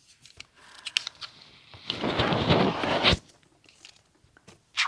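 Rotary cutter drawn along an acrylic ruler, slicing through layered fabric and batting on a cutting mat: one crunchy, tearing stroke lasting just over a second, after a few light clicks as the ruler is set in place.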